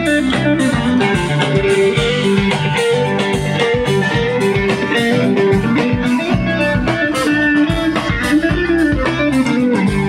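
Live rock band playing an instrumental passage with no singing: electric guitars and an acoustic guitar over bass guitar and a steady drum beat.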